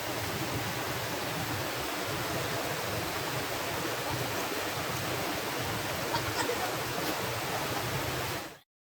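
Steady rushing of waterfall water. It cuts off abruptly near the end.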